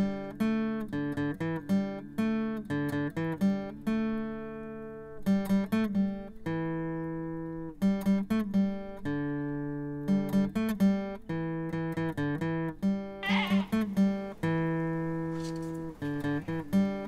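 Background music of plucked acoustic guitar: a run of picked notes that each ring and die away, with held chords between.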